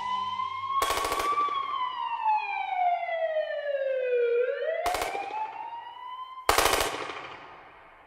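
A siren wailing, its pitch slowly rising and falling, cut by three short bursts of automatic gunfire: about a second in, about five seconds in, and the loudest near the end. The sound then fades away.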